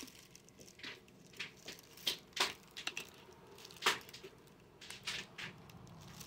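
Clear plastic packaging crinkling and rustling in the hands, in scattered short crackles, the two sharpest about two and a half and four seconds in.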